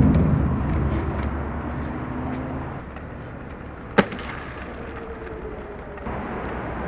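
Skateboard wheels rolling on pavement, a low rumble that fades away, with one sharp clack of the board about four seconds in; the rolling gets louder again about six seconds in.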